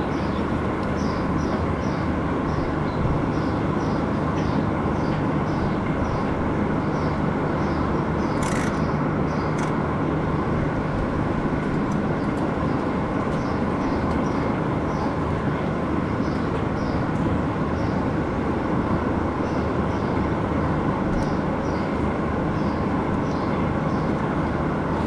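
Steady machinery drone with a low hum, from running farm machinery in a dairy barn. A short high chirp repeats about twice a second through much of it.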